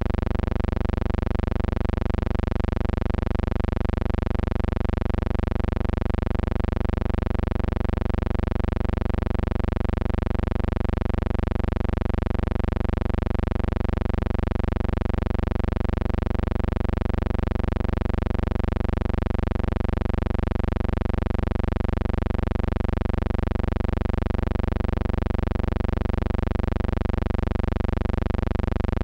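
Steady low electrical buzzing hum with a faint regular pulse, about one and a half beats a second, on the soundtrack of an old silent film transfer; no speech or other events.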